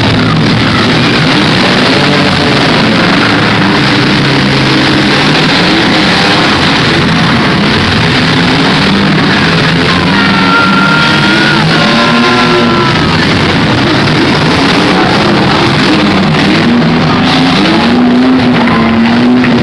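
Rock music playing loudly, mixed with the engines of demolition derby cars running and revving as they push against each other.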